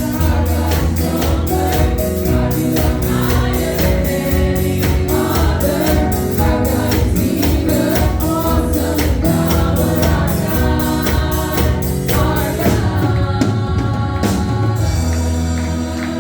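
Gospel music: a choir singing over a band with a steady drum beat.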